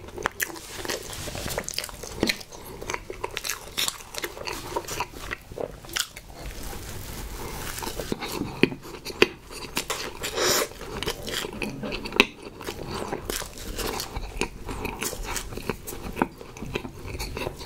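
Close-miked chewing and biting of a Sno Ball snack cake (chocolate cake, marshmallow and coconut coating), full of wet, irregular mouth smacks and clicks.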